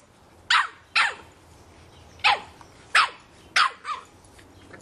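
3½-month-old Boston Terrier puppy barking at a soccer ball: six short, sharp, high yaps at uneven gaps of half a second to a second, each dropping in pitch, the last one weaker.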